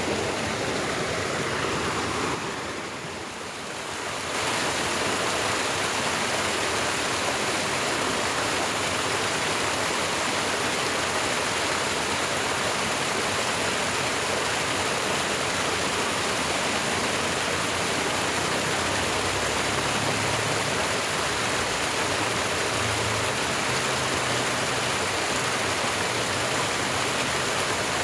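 Steady rush of flowing water in an irrigation ditch, briefly quieter about three seconds in.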